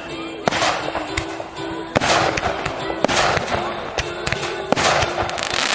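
Fireworks going off: a run of sharp bangs, four of them loudest, with crackle in between, and music playing along underneath.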